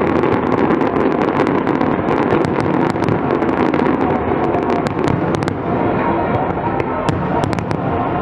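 Fireworks display: a dense, continuous crackling of many small bursts over a steady rumble, the crackles thinning out a little past halfway.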